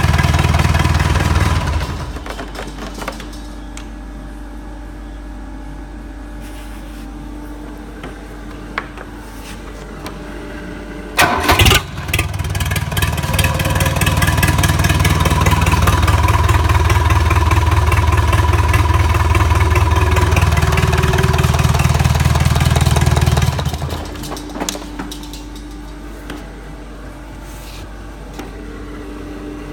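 Engine on a test stand run in spells: its loud low running dies away about two seconds in, it is started again with a short clatter around eleven seconds in, runs loudly for about twelve seconds, and drops away again near twenty-four seconds.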